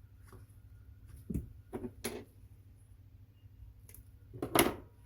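A few short, sharp clicks and knocks, about four in all and spaced irregularly, over a faint steady low hum.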